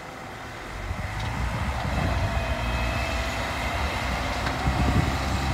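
Ten-wheel dump truck's diesel engine, a steady low rumble that picks up about a second in as the truck is manoeuvred into place to dump its load of earth.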